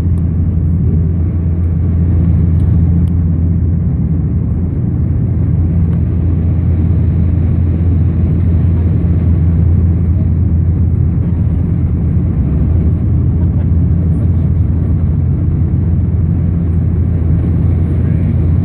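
Dash 8 Q400 turboprop engines and six-bladed propellers heard from inside the cabin: a steady low drone over rushing airflow noise, with the landing gear down on approach.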